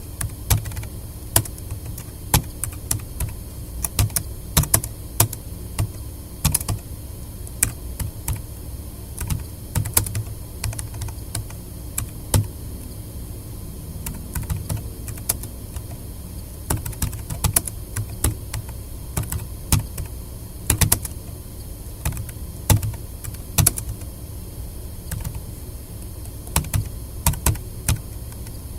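Typing on a tablet PC's keyboard: touch-typing practice in romaji kana input. Irregular key clicks come in quick runs with short pauses between them.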